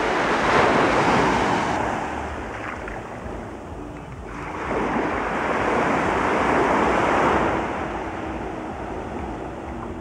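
Small waves breaking and washing up a sandy beach, swelling twice and fading back between surges.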